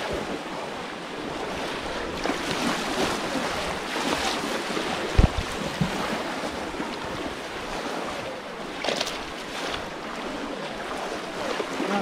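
Muddy pond water splashing and sloshing as people wade and plunge bamboo polo fish traps into it, with a single dull thump about five seconds in.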